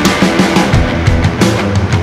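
Loud, hard-driving rock music with a steady drum beat and sustained low notes.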